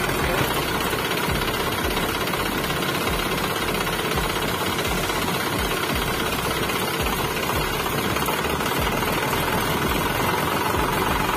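Steady engine-like running with a fast, uneven knocking rattle as the homemade mini tractor drives along pulling its trailer.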